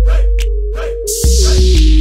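Electronic hip-hop-style background music with heavy deep bass hits, steady hi-hat ticks and a melody line that steps down in pitch. A falling swoosh sweeps down about a second in.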